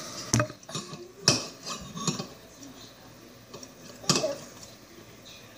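Slime being stretched and dripped onto a table, giving a few sharp sticky clicks and pops, the loudest about a second in and again about four seconds in.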